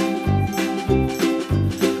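Background music: a cheerful plucked-string tune over a steady, repeating bass beat.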